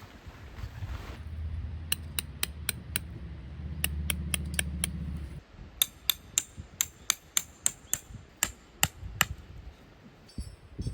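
Three runs of sharp, quick taps or strikes, about three to four a second, over a low rumble that stops about halfway through.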